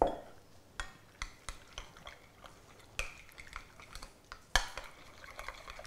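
A bottle set down with a knock, then a utensil stirring thick blue cheese dressing in a glass bowl, clinking against the glass in scattered sharp taps.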